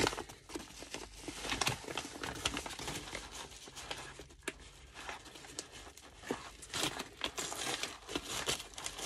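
Plastic postal mailer bags crinkling and rustling as they are squeezed and handled, with one being torn open; an irregular run of crackles.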